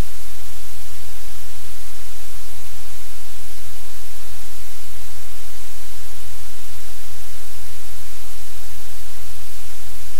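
Loud, steady static hiss with a strong low hum underneath.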